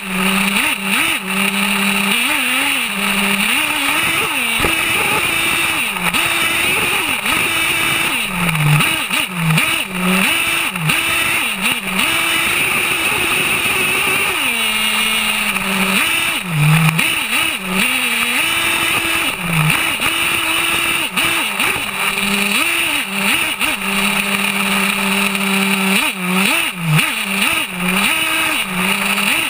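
HPI Savage X 4.6 nitro RC monster truck's two-stroke glow engine, heard close up from on board, buzzing and revving up and down over and over as the throttle is worked, with a few longer stretches held at steady high revs.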